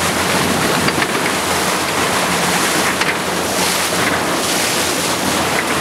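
Water rushing and wind buffeting the microphone on open water, with a steady low engine hum underneath, typical of a boat under way.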